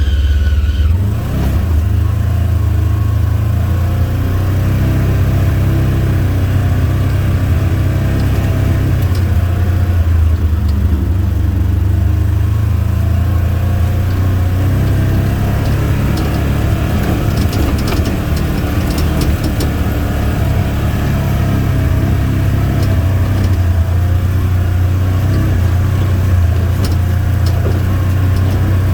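Side-by-side utility vehicle's engine running steadily as it drives along, heard through a camera mounted on its windshield, with some light rattling clicks about two-thirds of the way through.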